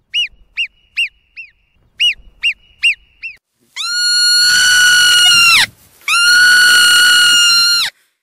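Marmot calling: a quick series of short, high chirps, four and then five, followed by two long, loud whistles of nearly two seconds each that rise at the start and then hold a steady pitch.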